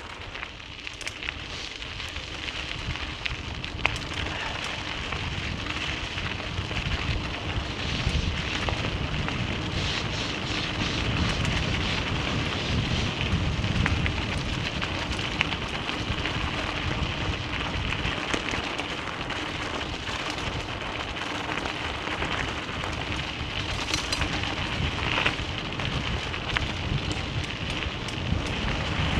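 Vehicle driving on a loose gravel road: tyres crunching and crackling over the stones, with a steady low rumble underneath. It builds over the first few seconds, then holds steady.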